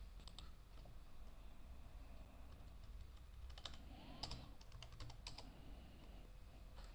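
Faint, scattered clicks from a computer mouse and keyboard, some coming in quick pairs, over a low steady hum.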